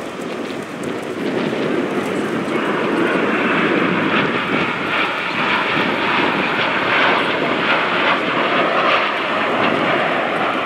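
Aermacchi MB-339 jet trainers passing over in formation, their turbojet engines making a loud, steady jet noise that grows louder and brighter about two seconds in.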